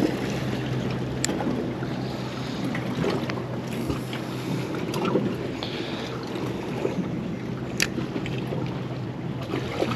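Bay boat sitting on the water: water lapping against the hull and wind on the microphone, over a steady low hum, with a couple of sharp clicks.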